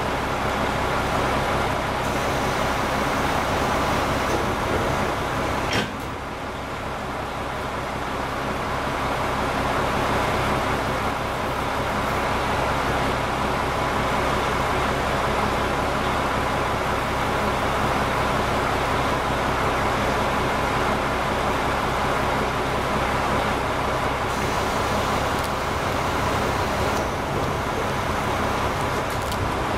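Diesel engine of a KiHa 47 railcar idling steadily, with its exhaust note. About six seconds in there is a sharp click, after which the sound drops a little and builds back up over a few seconds.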